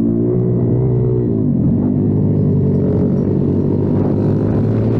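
Kayo TT 140 pit bike's single-cylinder four-stroke engine running under the rider. Its pitch drops about a second and a half in, runs uneven for a couple of seconds, then settles to a steady note near the end.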